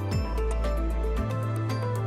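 Background music: held bass notes and sustained instrument tones over a steady beat, the bass note changing a little past halfway.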